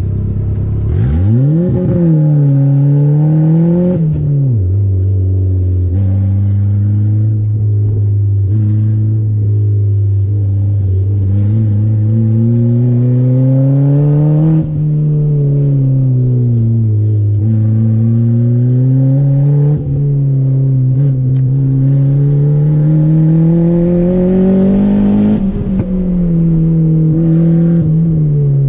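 Turbocharged Honda D16 single-cam engine of a Civic, heard from inside the cabin on an autocross run. It launches hard about a second in, drops back near four seconds, then revs rise and fall repeatedly through the course, with a few brief sharp dips.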